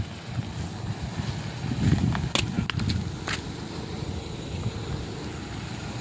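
A Nissan Grand Livina car driving slowly over a loose gravel road: a low rumble of engine and tyres, swelling about two seconds in, with a few sharp clicks of stones under the tyres.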